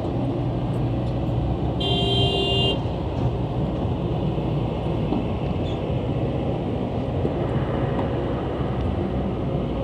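Heavy diesel machinery engines running steadily under load, with one vehicle horn blast about two seconds in that lasts about a second.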